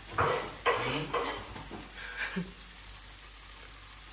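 Food sizzling in a frying pan while it is stirred. A spoon scrapes against the pan in several short strokes in the first second and a half, and once more a little past two seconds.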